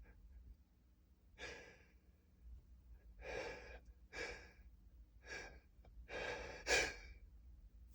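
A man's short, noisy breaths and gasps as a sneeze builds: about five separate breaths, the last and longest near the end.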